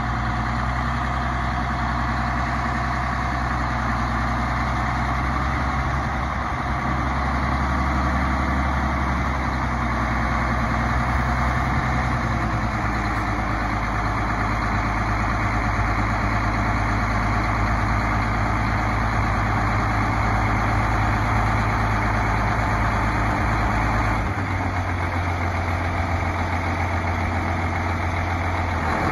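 Challenger 85C tractor's diesel engine running as it pulls up beside a dump truck, its note shifting about twelve seconds in and again about twenty-four seconds in.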